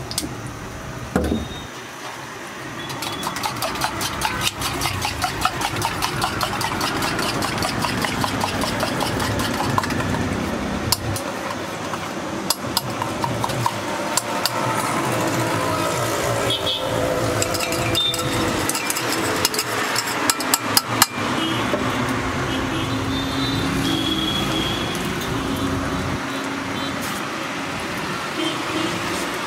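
A steel spoon clinks rapidly against a steel mug, several strokes a second, as eggs are beaten for an omelette, with road traffic running behind. The clinking stops about two-thirds of the way through, leaving the steadier traffic noise.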